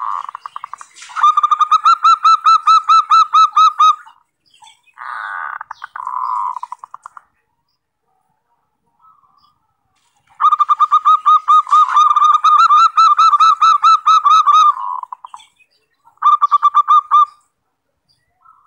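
Zebra dove (perkutut) lure call: phrases of rapid trilled cooing. Clear pulsing trills alternate with rougher buzzy ones, separated by pauses of one to three seconds. It is the call used to draw wild zebra doves in.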